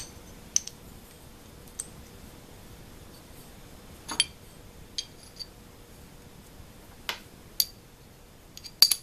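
Machined aluminum parts clinking and tapping together as they are handled and fitted: scattered sharp, light metallic clicks a second or so apart, with a quick cluster of them near the end.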